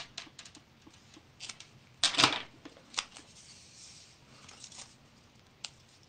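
Paper craft supplies, tickets among them, being handled: soft rustling and scattered light clicks, with a louder rustle about two seconds in.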